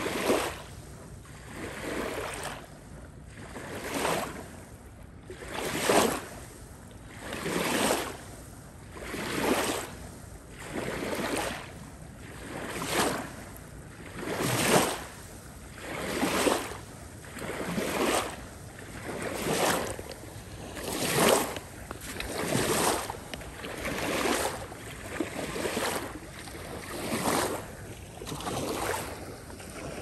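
Small waves washing up onto a sandy river bank, each breaking and draining back, in a steady rhythm of about one wash every second and a half to two seconds.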